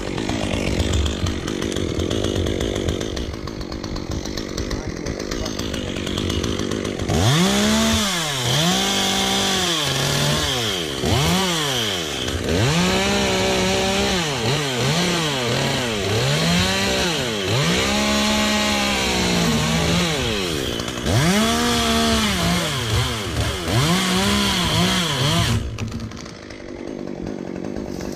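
Chainsaw running at low speed, then from about seven seconds in revving up and dropping back again and again as it cuts through a limb, settling back down near the end.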